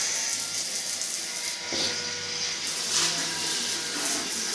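Handheld health faucet (bidet jet spray) spraying water into a toilet bowl: a steady hiss of water.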